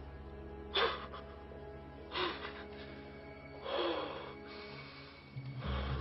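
Background score music with held notes, broken by three short rushes of noise about a second and a half apart.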